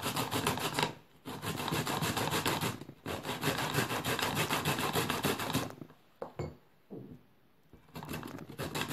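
A radish being grated by hand on a grater: quick, rhythmic scraping strokes, several a second, in runs broken by short gaps, with a pause of about two seconds starting around six seconds in before the grating resumes.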